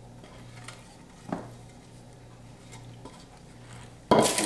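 Wooden spoon scraping a thick peanut butter and sugar syrup out of a metal pot into a glass bowl of corn flakes, with faint scrapes and a single knock about a second in. Near the end comes a loud, short rustling scrape as the spoon begins stirring the syrup through the corn flakes.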